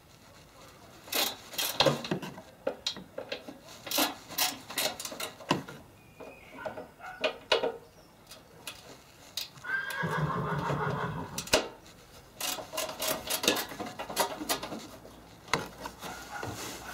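Sharp metallic clicks and clinks of tools and bolts being worked on the wing fixings under the wheel arch, with a cordless drill running for about a second, roughly ten seconds in, to drive out a wing bolt.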